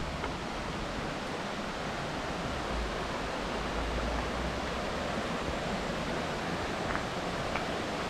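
Steady rush of water pouring over a small river waterfall.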